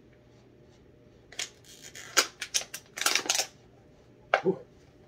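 A plastic water bottle crinkling and clicking as it is handled: a quick run of sharp crackles lasting about two seconds, then one short crinkle near the end.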